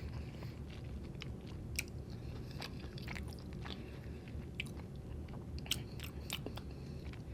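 A person chewing a mouthful of burrito with Impossible plant-based meat close to the microphone, with scattered short wet mouth clicks.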